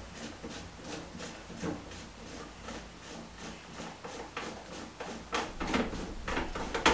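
Large plastic siphon nut under a toilet cistern being unscrewed by hand: a run of short scraping clicks, about three a second, that grow louder near the end.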